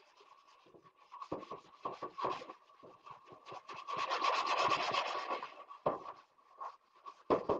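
A plastic sponge loaded with soapy cleaning clay scrubbing grease off the inside of a metal grill lid: quick back-and-forth rubbing strokes, thickest and loudest about four to five seconds in. A couple of sharp knocks come near the end.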